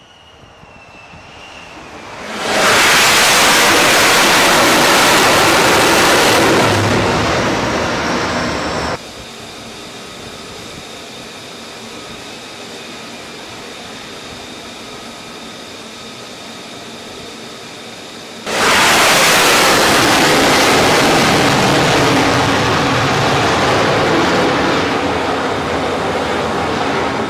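F-35C fighter's single F135 turbofan jet engine passing close at high power: a loud rushing jet noise builds over the first couple of seconds. It then drops abruptly to a quieter, steady engine sound with a faint high whine, and jumps back to the loud rush about two-thirds of the way through.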